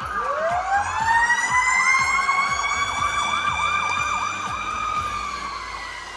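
Sirens of passing emergency vehicles (police cars and a fire engine). One siren winds up from low into a long wail that slowly sinks as it fades, while another yelps rapidly over it.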